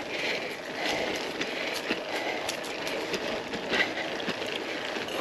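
Gravel bike rolling along a dirt track: a steady rustle of tyres on the ground with many small clicks and rattles from the bike.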